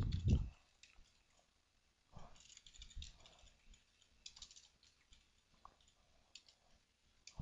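Sparse, faint computer keyboard keystrokes: scattered single clicks and short runs of typing over near-silence. A louder sound at the start stops about half a second in.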